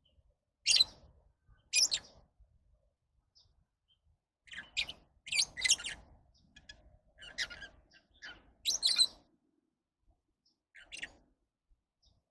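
Lovebirds giving short, high-pitched chirps: two single calls near the start, then a quick run of several calls from about four seconds in, and one more near the end.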